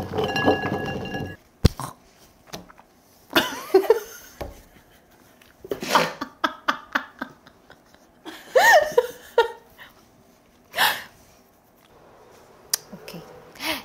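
A woman making short wordless vocal sounds, such as laughs and exclamations, with curving pitch, set apart by pauses and a few sharp clicks.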